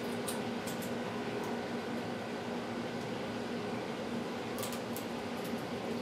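Steady mechanical fan-type hum with a low drone, plus a few faint sharp ticks about a quarter second in and again near the end.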